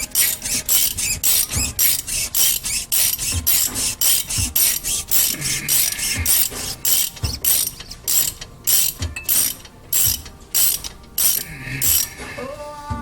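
Socket ratchet clicking steadily, about three to four clicks a second, as it backs out the loosened brake caliper guide pins with an 11 mm hex bit. The clicking slows slightly and stops just before the end.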